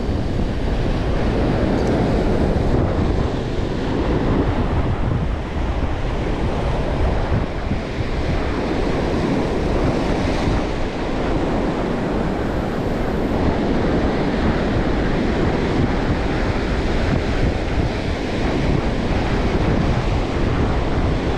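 Ocean surf breaking and washing over shoreline rocks in a steady, loud wash. Wind buffets the microphone.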